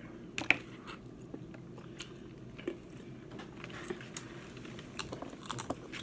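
A person chewing and biting into seafood, with a few sharp cracks and clicks about half a second in and again near the end.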